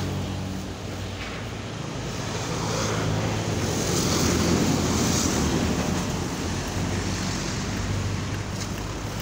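A steady low engine hum under road noise that swells about four seconds in as a motorcycle passes close by, with wind buffeting the microphone.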